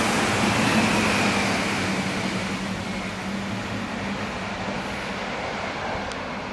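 Chiltern Railways diesel multiple unit passing through the station and drawing away, the rush of its wheels and a steady low diesel engine hum fading as it goes.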